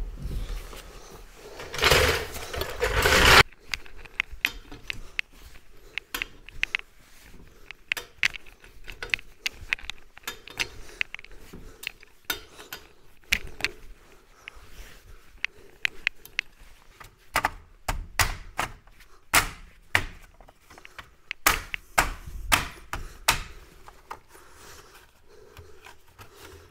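A loud rush of noise for about a second and a half, about two seconds in, as the trolley jack lets the car down. Then a long run of sharp metallic clicks and knocks from a wheel brace on the wheel bolts, thickest in the last third.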